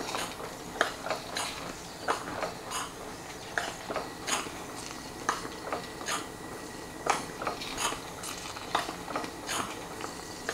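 Model sternwheeler steam engine test-running on steam, its rods and valve gear clicking and knocking irregularly, about two or three times a second, over a steady hiss.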